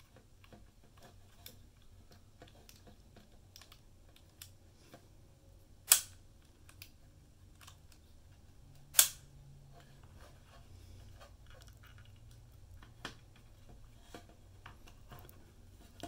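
Plastic play and stop button levers of an opened Microsonics 301 microphonograph being pressed and released by hand: small scattered clicks, with two sharp, loud clicks about six and nine seconds in.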